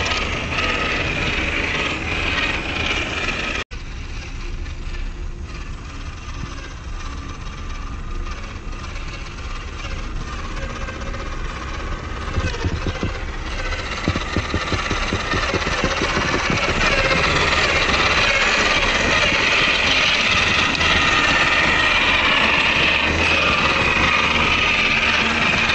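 Electric motor and two-speed gearbox of a WPL C74 RC crawler whining as it drives through snow. The sound drops out briefly about four seconds in, then grows louder in the second half with a fast ticking under the whine.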